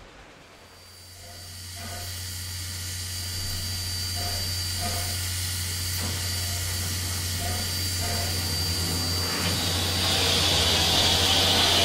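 Reading & Northern 2102, a 4-8-4 steam locomotive, hissing steam with a steady low hum beneath, growing steadily louder. The hiss swells sharply near the end.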